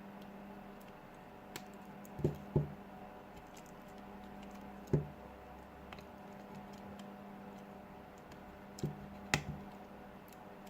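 Scattered sharp taps and clicks as a Samsung Galaxy S6's inner frame is handled and pressed back into place on the phone, about six in all, over a faint steady hum.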